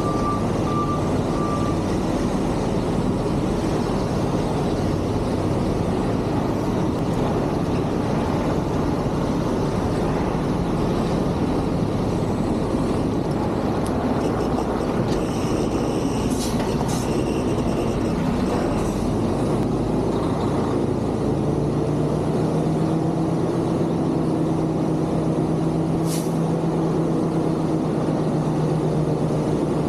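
Semi truck's diesel engine running steadily as the tractor-trailer backs slowly. A reversing beeper sounds for the first couple of seconds, a few brief sharp sounds come in the middle and one more near the end, and over the last third the engine settles into a steadier hum with a clear low note.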